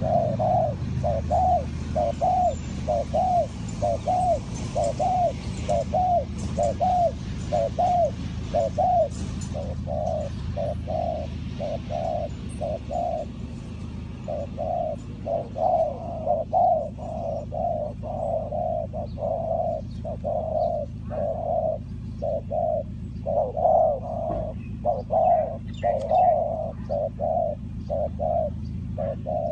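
Spotted dove cooing: a long run of repeated coos, about two a second, with a short break partway through. Faint chirps of other small birds in the second half.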